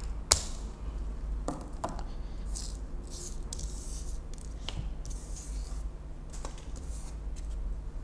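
Scissors snipping the ends of a Cat6 cable's twisted-pair conductors, with one sharp snip about a third of a second in. Softer clicks and rustling follow as the wires and a plastic RJ45 connector are handled.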